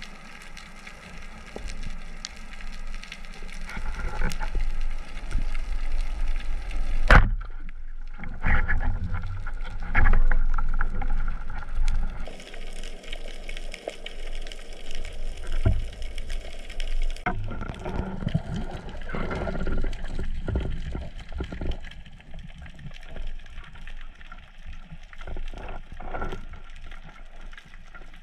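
Underwater sound picked up through an action camera's housing: water moving and gurgling, with scattered knocks and one sharp click about seven seconds in. The character of the sound changes abruptly several times.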